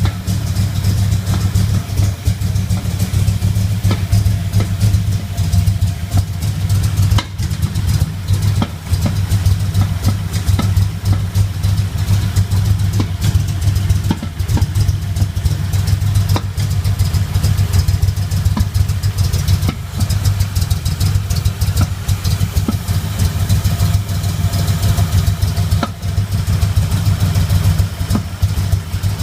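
Car engine idling steadily, with an irregular popping from the passenger side of the lower intake manifold.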